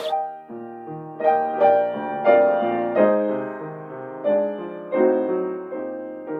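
Piano playing a slow, gentle piece. Chords and single notes are struck about once a second and left to ring and fade.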